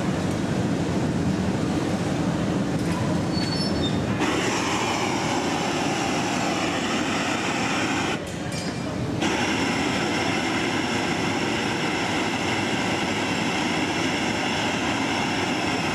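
Steady roar of gas burners in a glassblowing studio: the glory hole furnace and a hand-held gas torch flaming a large glass piece. The sound changes abruptly about four seconds in and drops briefly around eight to nine seconds.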